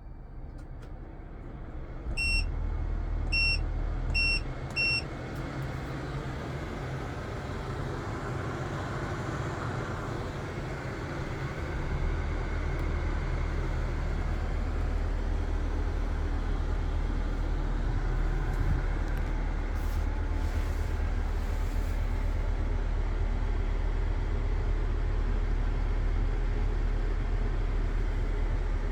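Four short electronic beeps, then a steady machine hum that builds up and gets fuller and lower about twelve seconds in.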